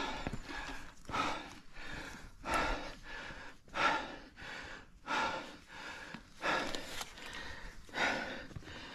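Heavy, rhythmic breathing of a climber under exertion while scrambling up rock, about seven loud breaths evenly spaced just over a second apart.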